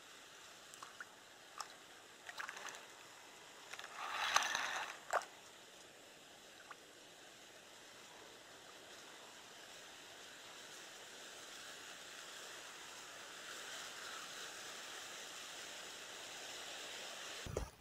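Faint, steady hiss of wind and small waves lapping on the lake, with a few light clicks early on and a brief louder scuffle about four seconds in.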